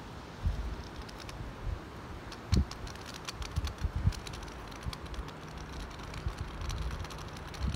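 Raindrops ticking irregularly close to the microphone, thickest through the middle, over a steady hiss of rain, with a few low thumps of wind on the microphone.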